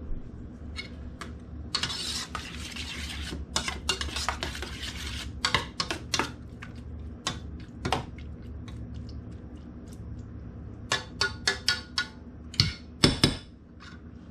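A metal spoon stirring and scraping canned SpaghettiOs with meatballs in a stainless steel saucepan, with scattered clinks of metal on metal. Near the end comes a quick run of sharp clinks.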